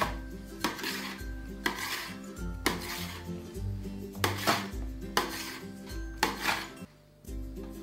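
Large kitchen knife chopping through soft dough and knocking on a stainless steel worktop, a sharp clack at each cut, roughly one a second.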